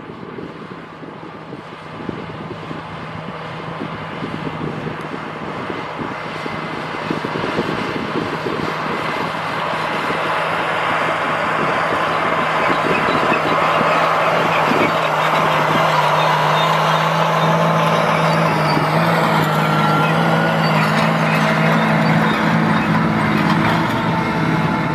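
A John Deere 8285R tractor's 9-litre diesel engine working under load as it pulls a 714 mulch tiller through corn stalks. The steady engine note grows louder as the tractor comes closer, and it stays loud as it passes close by.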